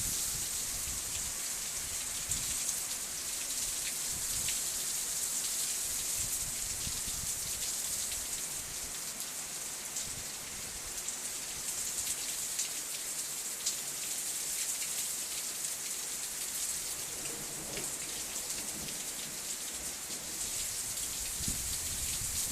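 Heavy rain mixed with sleet falling and hitting surfaces: a steady hiss with scattered fine ticks of individual drops.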